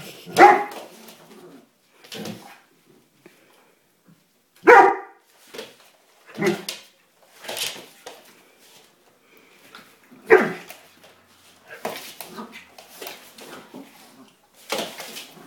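Dog barking in single sharp barks at uneven intervals, the loudest about half a second, five seconds and ten seconds in, with fainter barks between, from a Doberman and a small Prague ratter facing off over a dog bed.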